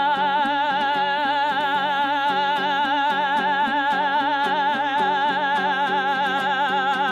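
Kazakh zhyr singing: one long held note with a wide, even vibrato, sung over a steady rhythmic plucked-string accompaniment.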